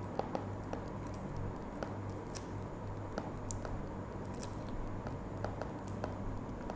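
Irregular light ticks and taps of a stylus writing on a tablet screen, over a steady low electrical hum.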